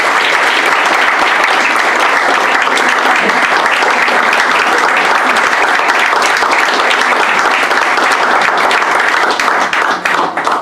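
Audience applauding: loud, dense, even clapping that thins out and stops near the end.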